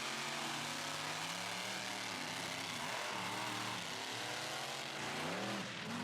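Engines revving, their pitch rising and falling over and over, with a higher climb about five seconds in.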